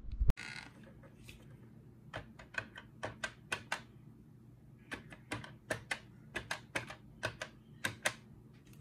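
Fingertips pressing the plastic tile keys of a brick-built LEGO telephone keypad, dialling a number: about twenty quick, sharp clicks in two runs, the first about two seconds in and the second about five seconds in. A single louder click comes right at the start.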